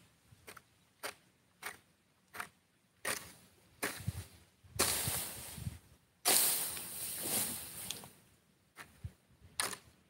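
Long-handled hoe striking and scraping through dry grass and soil: a few short sharp strikes, then longer rustling scrapes in the middle, the loudest one lasting nearly two seconds.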